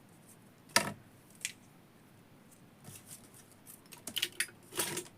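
Thin earphone wire being snipped through with a small cutting tool: one sharp cut about a second in, a lighter click soon after, and a cluster of small clicks near the end.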